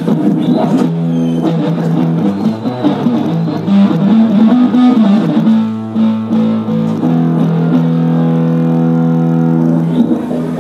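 Electric guitar played through a stage amplifier during a band sound check: a slow melody of long held notes, some bent, with one note held for about three seconds near the end.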